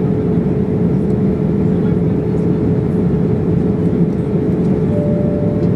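Steady roar of airflow and engines inside the cabin of a Boeing 787-8 airliner in flight, with a constant hum under it. A second, higher tone sounds briefly near the end.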